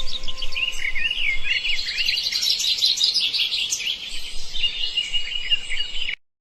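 Songbird singing a fast, continuous run of high chirps and warbled trills, cutting off abruptly about six seconds in.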